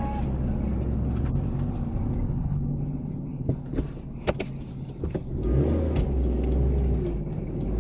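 A car's engine and road noise: a steady low hum, with a few short clicks or knocks around the middle.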